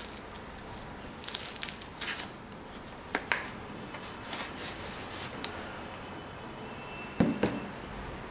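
Hands handling crumpled white stuffing paper and a sneaker: scattered paper rustles and crinkles with a few sharp taps. The loudest is a pair of knocks about seven seconds in, as the insole is being pulled out of the shoe.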